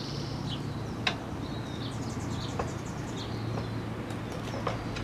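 A few sharp metal clicks and taps of a tire spoon against the rim and tire-changing machine while prying at a motocross tire's bead, the loudest at the very end, over a low steady hum. Faint bird chirps in the background.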